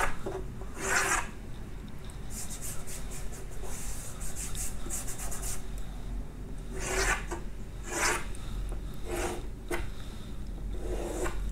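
Chalk scraping across a chalkboard as long lines are drawn: separate scraping strokes, with a run of short quick strokes in the middle.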